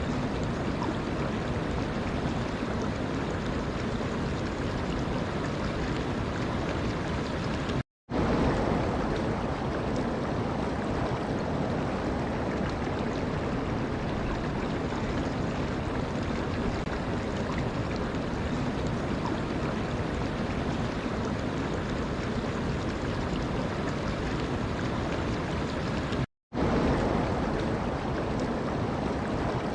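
Running water flowing steadily, a continuous rushing noise; it cuts out for a split second twice, about eight seconds in and again near the end.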